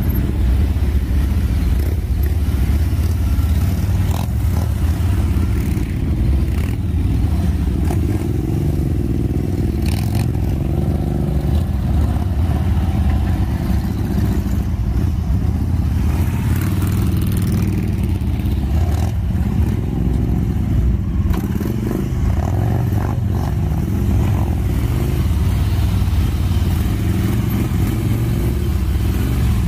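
Several big cruiser and touring motorcycles running at a crawl, a steady low engine rumble with the pitch rising and falling as riders work the throttle, most clearly about ten seconds in.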